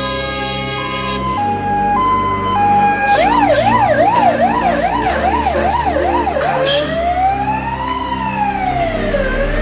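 Fire engine's electronic siren switching modes: a two-tone hi-lo alternation at first, a fast up-and-down yelp from about three seconds in, then a slow rising and falling wail. Under it runs the low hum of the truck's diesel engine.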